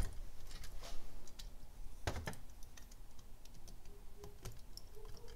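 Light, scattered metal clicks and taps of a screwdriver and small parts on a Weber 32/36 carburetor body as a screw is driven in to fit the choke cable clamp to the throttle linkage, with one louder tap about two seconds in.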